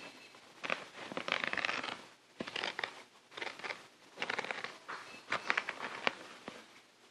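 Crinkling and rustling close to the microphone in about five bursts of a second or less, with a few sharp clicks in between.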